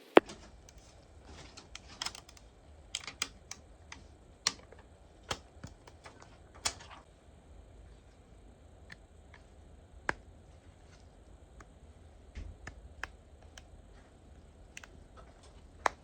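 Irregular sharp clicks and taps of an iPhone and small tools being handled, in scattered clusters with gaps. The loudest click comes just after the start and another near the end.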